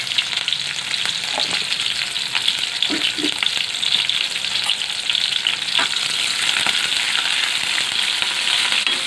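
Sliced onions and curry leaves frying in hot oil in a kadai, a steady sizzling hiss with small crackles; a steel ladle stirs through them near the end.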